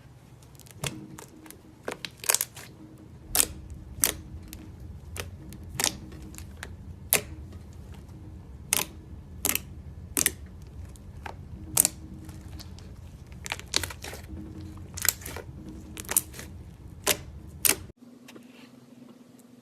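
Slime being squeezed and pressed by hand, giving sharp, irregular pops and clicks about one or two a second. They stop abruptly near the end.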